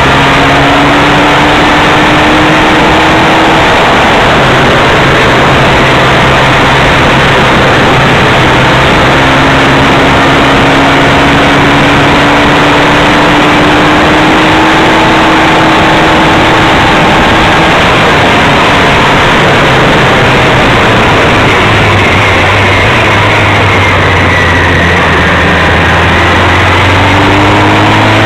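Riding a motorcycle at road speed: loud wind noise on the microphone over the steady drone of the engine, whose pitch slowly rises and falls with speed.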